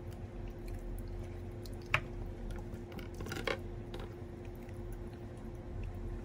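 Wooden spoon scraping and scooping kimchi fried rice with fried eggs in a non-stick frying pan, working the crisped rice off the bottom: soft scrapes and squishes with a sharp knock about two seconds in and a burst of scraping around three and a half seconds, over a steady low hum.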